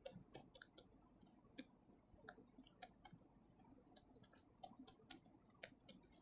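Near silence: room tone with faint, irregular small clicks, a few every second.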